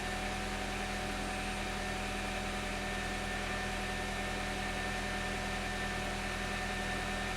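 Car engine idling: a steady, even hum with a few constant tones.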